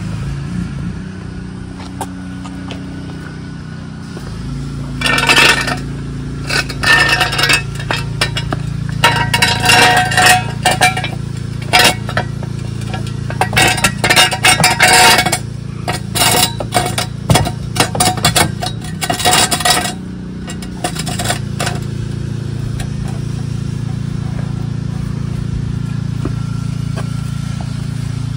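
Steel ratchet-type jack stands (Torin 3-ton) being set in place and adjusted. From about five seconds in to about twenty seconds in there are repeated metallic clinks and rattles with a ringing tone, along with some scraping, all over a steady low hum.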